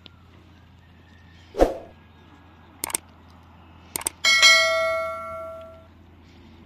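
YouTube subscribe-button animation sound effect: a thump, two quick pairs of clicks, then a bright bell ding that rings and fades over about a second and a half.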